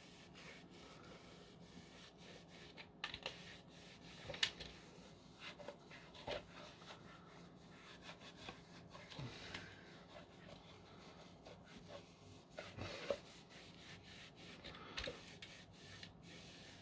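Faint rubbing and scattered light knocks as the plastic bin and parts of a Dyson V10 vacuum are wiped clean and handled.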